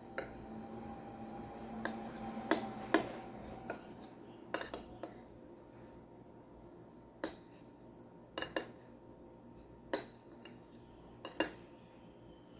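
A spoon clinking and tapping against a plate while someone eats: about a dozen sharp clinks at irregular intervals, some in quick pairs and triplets.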